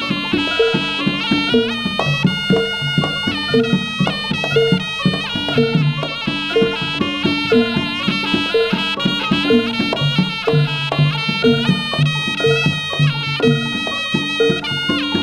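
Live jaranan gamelan music: a shrill, wavering reed melody (the slompret, a Javanese shawm) over a repeating gong-chime pattern with a note struck about once a second, drums and low bass tones.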